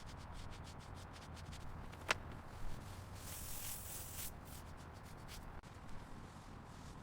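Rubbing strokes on a car headlight lens as it is sanded or polished during restoration: quick repeated scratchy strokes, a sharp click about two seconds in, and a longer hissing stroke near the middle.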